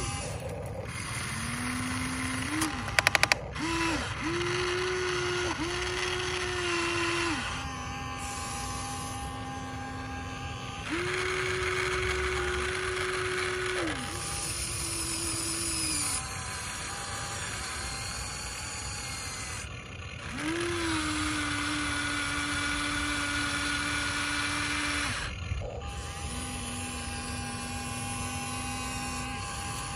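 Huina RC excavator's small electric motors whining in separate runs as the boom, bucket and turntable move, each run at its own steady pitch, starting and stopping between moves. A quick rattle of clicks about three seconds in.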